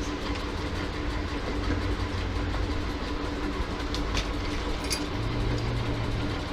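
Steady low rumble with a constant hum, and a few faint clicks about four and five seconds in.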